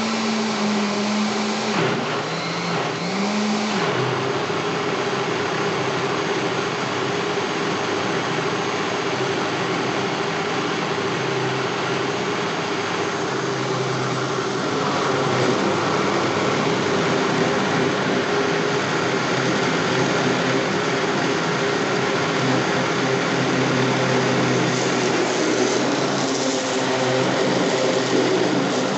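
Electric blender motor running steadily while processing homemade seasoning. Its pitch dips and wavers a couple of times a few seconds in, and it gets slightly louder about halfway through.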